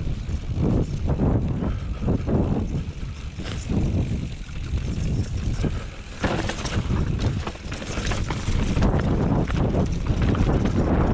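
Mountain bike rolling fast over a rough dirt trail: tyre rumble on loose ground with repeated knocks and rattles from the bike over bumps, and wind buffeting the action-camera microphone.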